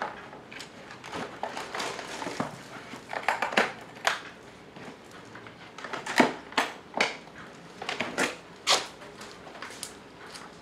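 A power tool and its accessories clatter and knock as they are packed into a hard plastic impact-wrench case. Later comes a run of louder sharp snaps as the case is shut and latched.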